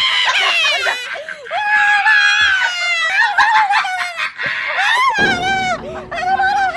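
Men screaming and yelling in drawn-out cries that waver in pitch.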